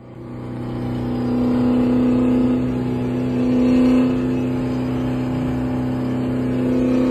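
Car engine running at steady revs, heard from inside a car, fading in over the first second and swelling slightly around four seconds in.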